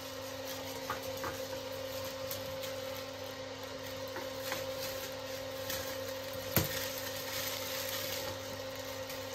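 Scissors snipping and a plastic bag crinkling as a bag of marinated chicken is cut open and peeled back, with one sharper snip about two-thirds through. A steady electrical hum from a kitchen appliance runs underneath.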